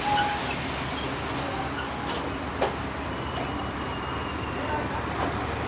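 Passenger train coaches rolling slowly past on the rails, with thin high-pitched wheel squeal and a few sharp clicks over the first few seconds; the squeal then fades and the rolling noise slowly eases.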